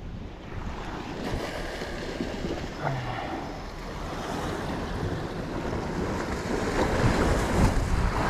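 Sea waves washing against rocks, with wind blowing on the microphone; it gets louder toward the end.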